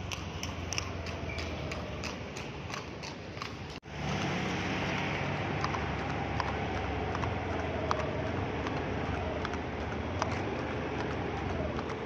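Horse's hooves striking an asphalt road at about three a second. After a cut about four seconds in, a motorcycle engine runs steadily, with only an occasional hoofbeat from the walking horse.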